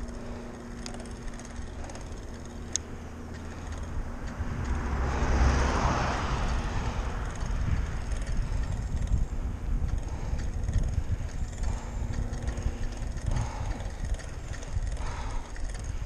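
Riding noise on a head-mounted camera while cycling: wind rumbling on the microphone with light rattles from the bike, and a car on the road alongside swelling past about five seconds in.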